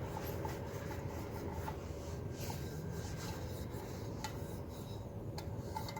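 Scrubbing a soot-stained camping cooking pot with a scrubber and washing-up liquid: steady, faint rubbing with a few light clicks.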